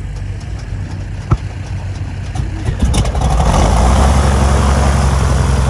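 An engine running steadily, with a sharp click about a second in, then growing louder and harsher about three seconds in as it is given more power.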